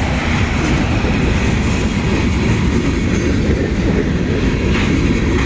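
Freight train rolling slowly past close by: a steady rumble and clatter of the railcars' wheels on the track.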